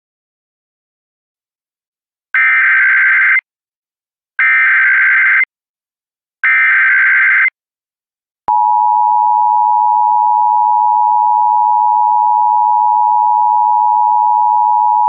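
Emergency Alert System tones: after a couple of seconds of silence, three one-second bursts of SAME header data, a harsh digital screech, about two seconds apart. Then, a little past halfway, the steady two-tone EAS attention signal starts and holds, announcing an AMBER alert.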